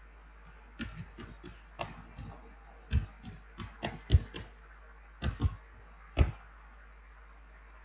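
Typing on a computer keyboard: irregular key clicks, some in quick runs, stopping a little after six seconds in.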